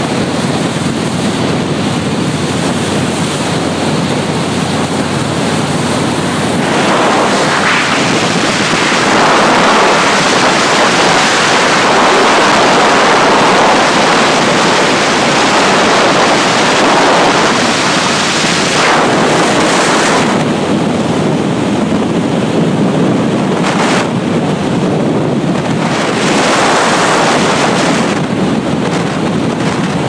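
Loud wind rushing over the microphone of a moving motorcycle, a steady roar of noise that swells louder for a stretch in the middle.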